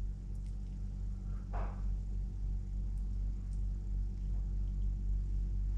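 Steady low electrical hum, with a brief soft rustle about one and a half seconds in and a few faint ticks.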